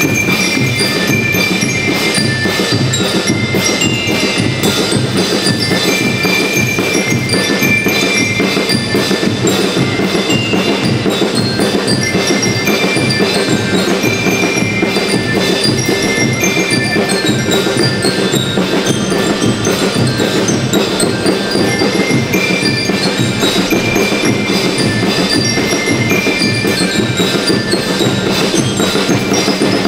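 School rhythmic band playing: bell lyres carry a bright metallic melody over a steady, fast beat of drums.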